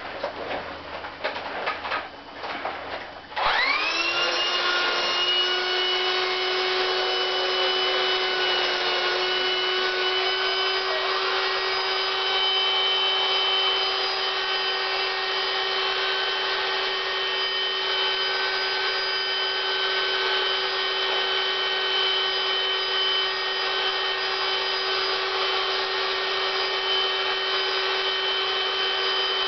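A few seconds of handling noises, then a small electric air pump or blower switches on, spins up to speed and runs with a steady hum, inflating the latex suit.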